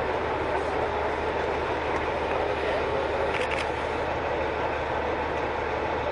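Steady rumbling din of fire engines running at a fire scene, with a brief hiss about three and a half seconds in.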